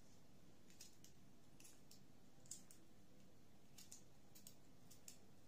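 Faint, irregular clicks of a small knife slicing through fresh green beans held in the hand, the cut pieces dropping onto a wooden cutting board.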